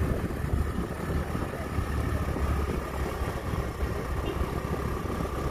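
Wind buffeting the phone's microphone while riding on a motorbike, with the rumble of the engine and road underneath.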